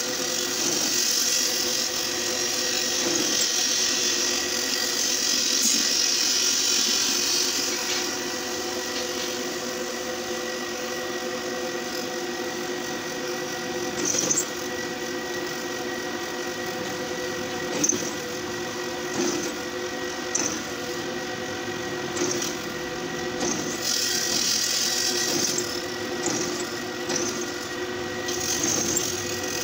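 Bench pillar drill press running with a steady motor whine while its twist bit cuts through a flat steel strip. The scraping cutting noise swells for the first several seconds and again near the end, with a couple of sharp knocks midway.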